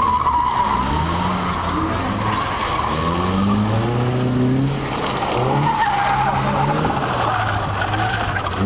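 Lotus Seven-style kit car drifting: its engine revs rise and fall repeatedly while the rear tyres squeal as they slide, the squeal loudest at the start and again a little past the middle.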